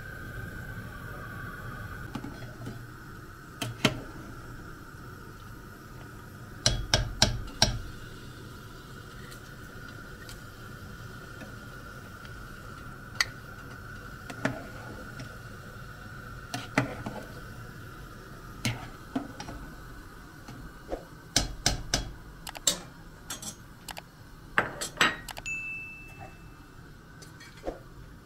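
A metal spoon and lid clinking against an aluminium cooking pot at irregular moments, several in quick succession about seven seconds in, around twenty-two seconds and around twenty-five seconds, over a steady hiss.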